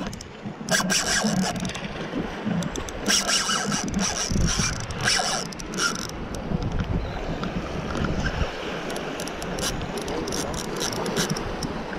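Spinning reel being cranked while fighting a hooked fish, with clusters of short clicks and scrapes from the reel and rod over wind rumbling on the microphone.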